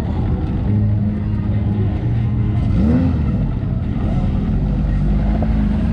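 A 4x4 off-road vehicle's engine running steadily at low speed, with a brief rise in engine pitch near the middle.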